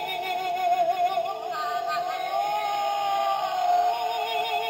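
Battery-powered ghost Halloween toy playing its sound effect through its small built-in speaker: a synthesized, voice-like melody of warbling tones with a strong vibrato, shifting in pitch partway through.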